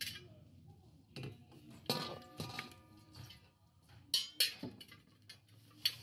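Scattered faint knocks and clinks of a metal pan being handled. The knock about two seconds in leaves a brief metallic ring.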